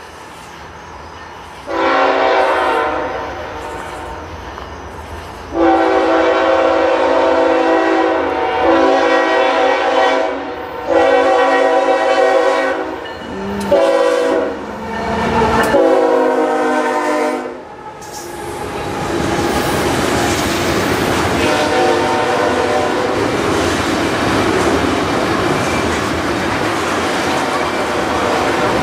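Nathan K5HL five-chime air horn on a Norfolk Southern GE ES44AC locomotive sounding a string of blasts for the grade crossing, mostly long ones with a couple of short ones, as the loaded oil train comes in. From about two-thirds of the way through, the steady rumble and clatter of the loaded tank cars' wheels on the rails takes over.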